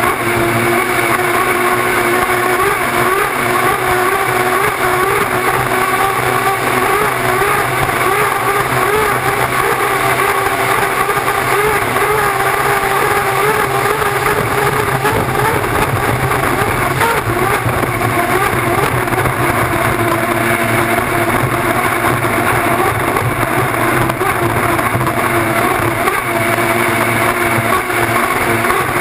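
Unlimited hydroplane's turbine engine running at racing speed, heard from the onboard camera. It makes a loud, steady noise with a whine that wavers slightly in pitch, mixed with the rush of wind and spray.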